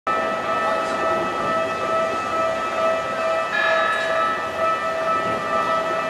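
Level-crossing warning bell ringing with an even, repeating electronic tone. A higher tone joins about halfway through.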